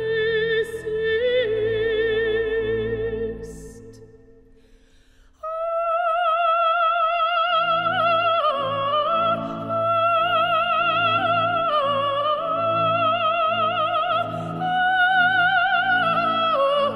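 Operatic singing with a strong vibrato over instrumental accompaniment. A held note fades away about four seconds in, and after a short pause a new, higher phrase begins, with the accompaniment coming back in soon after.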